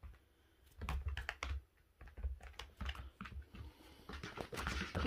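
Dogs' claws clicking irregularly on a hard laminate floor as a blind puppy and a larger poodle-type dog walk about, with busier scuffling near the end.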